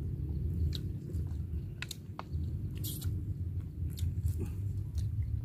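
Close-up chewing and biting of food, with a steady low rumble and scattered sharp crunches.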